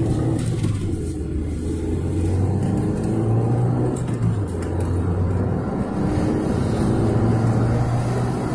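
Car driving at highway speed, heard from inside the cabin: a steady low hum of engine and road noise.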